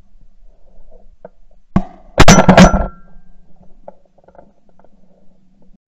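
Shotgun fired at a flushing pheasant: one sharp crack, then about half a second later two louder blasts close together, with a short ring after them.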